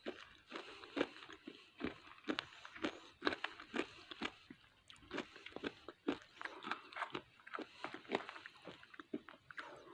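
Biting and chewing a hard piece of SS gold edible clay close to the microphone: a steady run of sharp, irregular crunches, about two or three a second.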